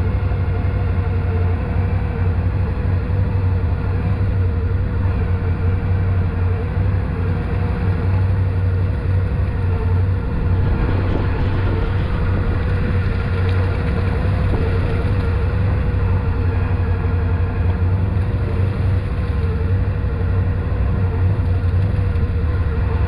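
ATV engine running steadily at an even pitch, with no revving.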